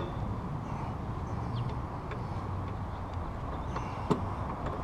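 Hands fitting a motorcycle footpeg onto its mount, with one sharp click about four seconds in as the peg's pin or clip seats, over a steady low background rumble.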